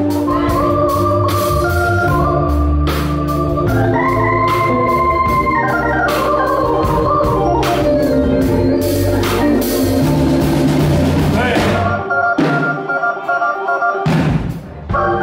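Live blues band in an instrumental passage with a Hammond-style organ sound out front, holding chords that climb about four seconds in, over drums with cymbal hits and a bass line. Near the end the drums and bass drop out for a moment and the organ holds on alone.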